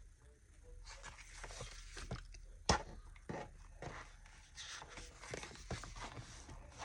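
Paper sticker sheets and packaging rustling and crinkling as they are handled, with scattered light clicks and one sharper click a little under three seconds in.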